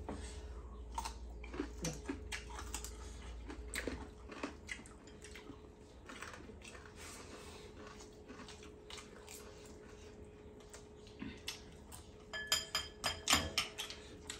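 Close eating sounds: chewing and crunching of a rice meal eaten by hand, with soft clicks of fingers and utensils on ceramic plates. Near the end comes a run of quick ringing clinks of a spoon on a dish, over a faint steady hum.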